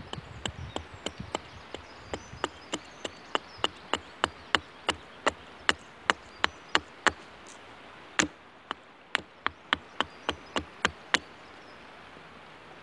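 Hultafors Classic Trekking 500 g hatchet chopping into a wooden spoon blank resting on a log, roughing out and thinning the spoon's shape. It makes a quick run of short, sharp strokes at about three a second, with a brief pause about two-thirds of the way through, and stops near the end.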